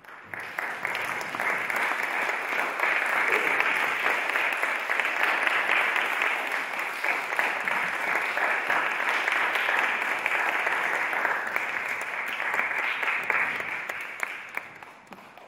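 Concert audience applauding at the end of a performance: the clapping builds within the first second, holds steady, then dies away over the last couple of seconds.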